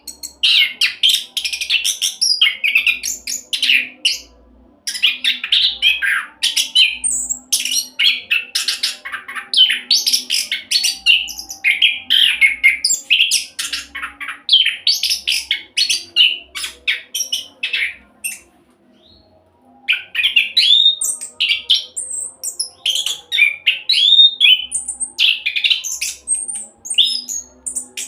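Orange-headed thrush singing a fast, continuous 'roll' song of rapid, varied chirps and whistles, pausing briefly about four seconds in and for about two seconds past the middle before carrying on.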